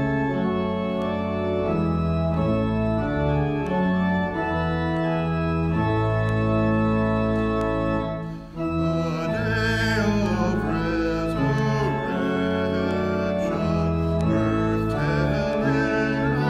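Organ music: slow, sustained chords that change every second or two. A little past halfway there is a brief break, after which wavering higher notes come in over the chords.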